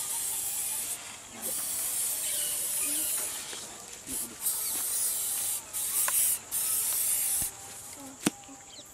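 Aerosol can of wound spray being sprayed in about five hissing bursts, each lasting from half a second to two seconds, with short gaps between them. A sharp click comes near the end.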